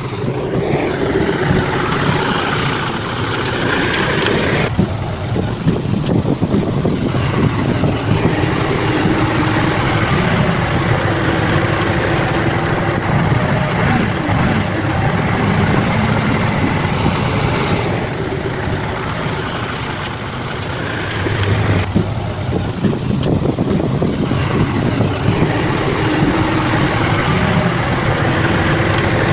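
Bulldozer's diesel engine running steadily under work, its tone shifting a little a few times.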